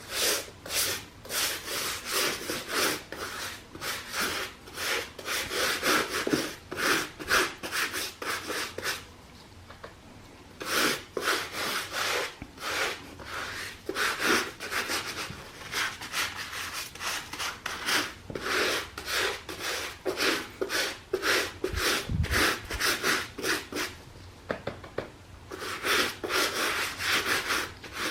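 Rapid back-and-forth scrubbing strokes on a sneaker, several a second, in three runs with short pauses about nine seconds in and near the end.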